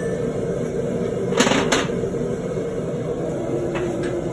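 Two hammer blows on hot steel at the anvil, about a third of a second apart, roughly a second and a half in, each with a short metallic ring, over a steady background hum.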